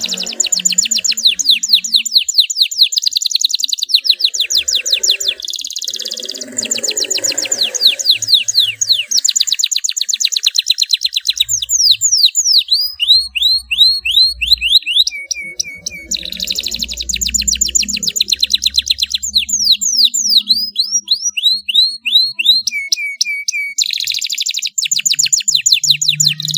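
Domestic canary singing: long rapid rolling trills of repeated notes, broken by runs of quick falling whistles and stretches of slower, evenly repeated chirps.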